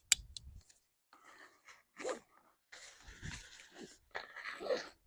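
A single sharp click at the start, then scattered rustling and scraping: a backpack hip belt being buckled and its webbing cinched tight around a tree trunk.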